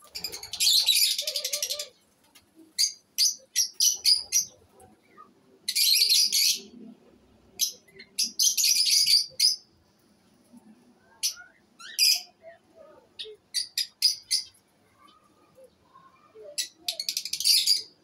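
Lovebirds chattering: shrill, rapid chirping in dense bursts of a second or so, four times, with single sharp chirps in between.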